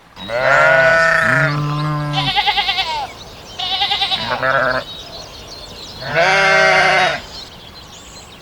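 Sheep bleating: about four loud, quavering baas, some high-pitched and some deep, overlapping at first, from more than one animal.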